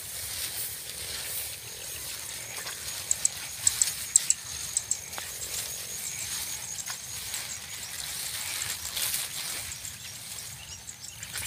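Rice plants rustling as someone walks through the paddy, over a steady high-pitched insect drone, with a cluster of sharp clicks about three to five seconds in.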